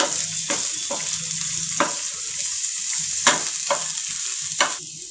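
Chopped capsicum and onion sizzling in hot oil in a black wok-style pan while a wooden spatula stirs them, scraping and knocking against the pan about six times. The sizzle drops off near the end.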